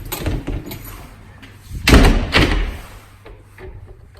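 A double door's leaf being shut and locked: one loud bang about two seconds in, with smaller knocks before it and light clicks of the handle and lock after it.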